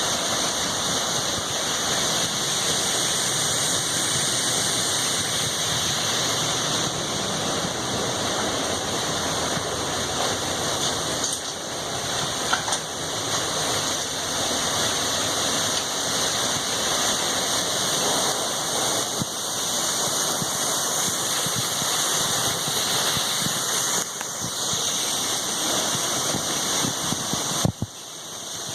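Tunnel Falls on Eagle Creek: a tall waterfall heard close up, a loud, steady, dense rush of falling water and spray. A couple of brief knocks cut through it, one near the middle and one near the end.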